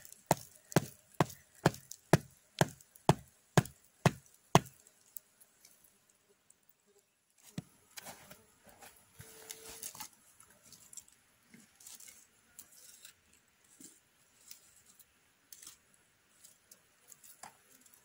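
Wooden knocks of a split piece of firewood used as a mallet, driving a forked wooden stake into the ground: about ten evenly spaced blows, roughly two a second, which stop about four and a half seconds in. After that only faint, scattered handling sounds.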